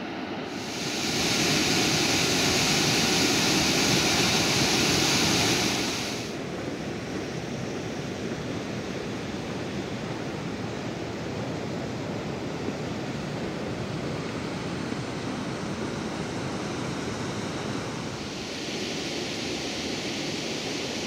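Steady rushing noise, much louder and hissier from about a second in to about six seconds in, then steady again at a lower level.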